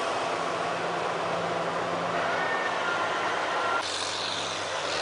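Heavy diesel earthmoving machinery, a Caterpillar D8N crawler dozer working with a 621B scraper, running steadily under load. The sound changes abruptly about four seconds in.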